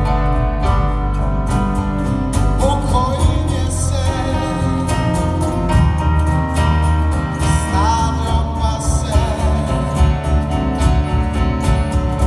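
A live band playing a song: a man singing into a microphone over acoustic guitar, electric guitar and keyboard, with a steady percussion beat.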